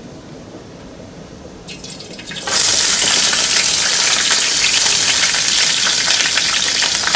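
Faint low hiss of oil heating in a pan, then, about two and a half seconds in, a sudden loud sizzle as sliced bell peppers go into the hot oil, frying steadily from then on.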